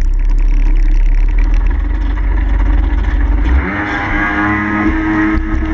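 Racing snowmobile engine running hard over water: a heavy low rumble, then about three and a half seconds in a strong engine tone comes in, rises a little and holds steady at high revs.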